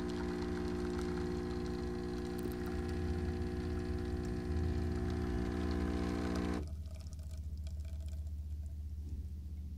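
DeLonghi Magnifica super-automatic espresso machine brewing an espresso shot, its pump giving a steady buzz that cuts off suddenly about two-thirds of the way through as the shot ends; a lower hum carries on after.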